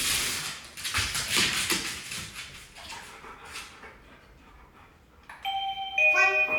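Wireless doorbell chime playing a melody of several notes, starting about five seconds in, the loudest sound here. Before it, a stretch of scuffling and rustling.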